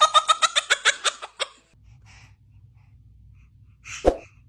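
Quick, rapid bursts of laughter for about a second and a half, then quiet. Near the end comes a single short, sharp baby's sneeze.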